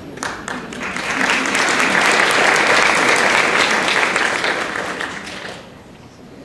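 Audience clapping, building over the first second or so and dying away near the end.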